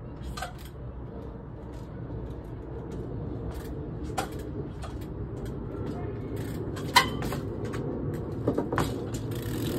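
Trials bike hopping on its rear wheel over wooden pallets and concrete: scattered sharp knocks and taps as the tyres and frame land and strike, the loudest about seven seconds in and a quick cluster near the end, over a steady low rumble.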